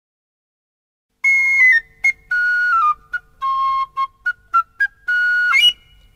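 A high whistle-like pipe plays a short tune of separate notes, some held and some short with gaps between, ending in a quick upward slide.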